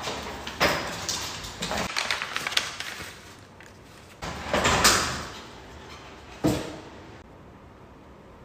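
An interior door being pulled open, with rattling and clattering of household things, then a louder rush about halfway and a single sharp click.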